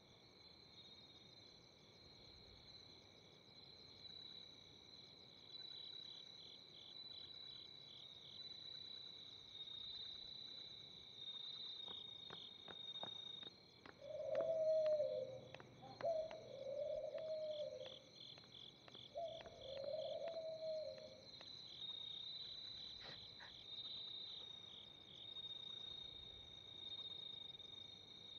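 Crickets chirping in a steady, pulsing high trill. About halfway through, a woman cries out in three wavering sobs, among a few scattered sharp clicks.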